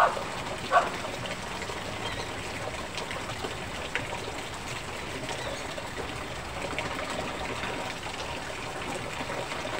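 Steady rain falling, with water pouring down in streams from overhead.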